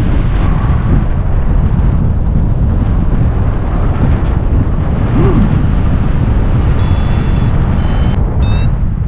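Airflow buffeting the camera's microphone during paraglider flight, a steady low rumble of wind noise. Near the end a flight variometer starts beeping, a few short high tones that step up in pitch, the vario's climb signal that the glider is rising in lift.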